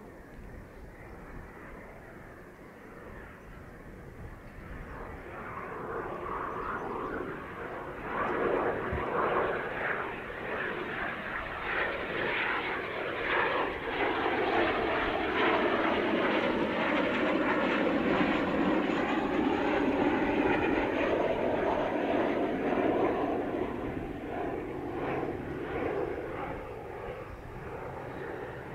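Kawasaki T-4 jet trainer's twin turbofan engines on landing approach, growing louder as the jet nears and easing off near the end as it reaches the runway. A faint high whine slides slowly downward while it is loudest.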